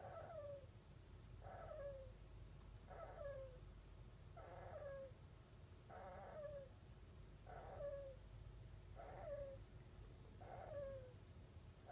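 A kinkuma (golden Syrian) hamster snoring: quiet, regular short snores about every second and a half, each sliding down in pitch at its end.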